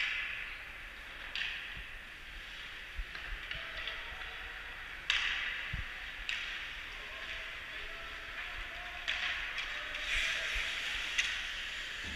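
Ice hockey play echoing around an indoor rink: a run of sharp knocks from sticks and puck, each trailing off into a hissing scrape of skates on the ice, about seven in all.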